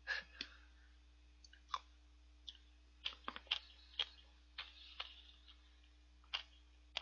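Eating red-bean shaved ice with a spoon: scattered faint clicks and scrapes of the spoon in the cup, and soft chewing and mouth smacks.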